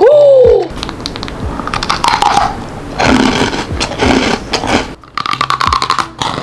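A woman's short falling "ooh" at the start, then a plastic snack wrapper crinkling as it is torn open. A freeze-dried strawberry is bitten with crisp crunches in the second half.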